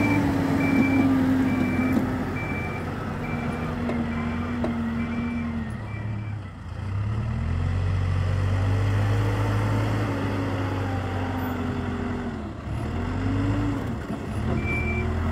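Hidromek 102S backhoe loader's diesel engine working under load, its pitch rising and falling as it pushes snow. A reversing alarm beeps about twice a second for the first six seconds and again near the end.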